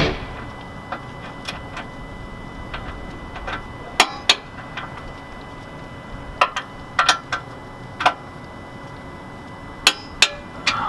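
Irregular sharp metallic clicks and clinks of hand tools on metal hardware as a sway bar installation is being finished, about fifteen in all, in small groups, the loudest around four seconds in and again near the end.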